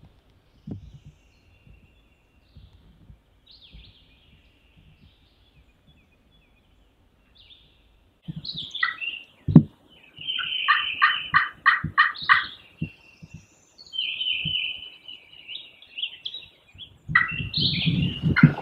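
Songbirds chirping in spring woods, faint at first. About halfway there is a sharp thump, followed by a wild turkey gobbler's rapid rattling gobble of about seven quick notes. Low thumps and rustling near the end.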